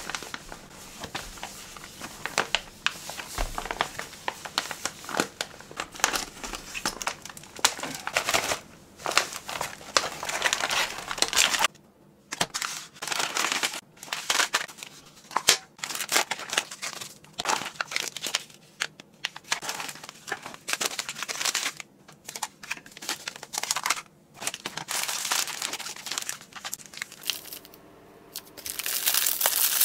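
Crinkling and rustling of plastic MRE ration pouches as gloved hands unpack and handle them, in irregular bursts with brief lulls.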